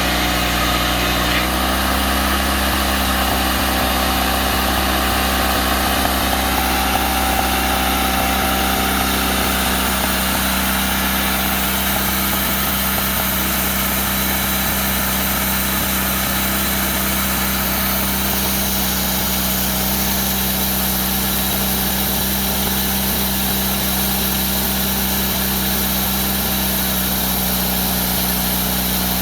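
Engine of an early-1990s Woodmizer LT40 portable sawmill running steadily at constant speed.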